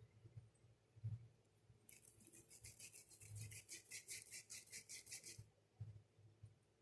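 Faint quick back-and-forth rubbing, about nine strokes a second for some three seconds in the middle: hands rolling a ball of soft dough between oiled palms into a long shape.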